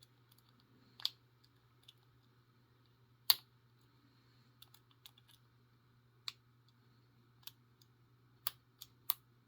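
Scattered small, sharp clicks of a hook pick and tension wrench working the pin stack of a Master Lock S31 padlock, one noticeably louder click a little over three seconds in. A faint steady low hum sits underneath.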